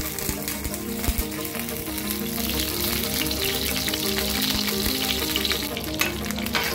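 Mustard seeds and curry leaves sizzling and crackling in hot oil in a frying pan: a South Indian tempering. The sound is a steady hiss with many small pops.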